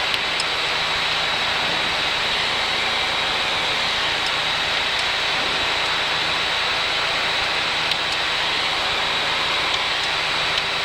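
Light aircraft's engine and propeller running steadily, heard from inside the cockpit as an even drone with a thin high whine.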